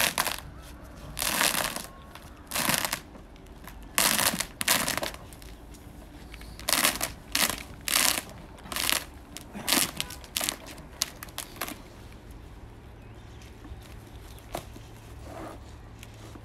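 Rolls of 4 mm waterproofing membrane being unrolled over a concrete slab: the stiff sheet crackles and crumples in short bursts, one or two a second. After about eleven seconds the bursts stop and only a faint low hum remains.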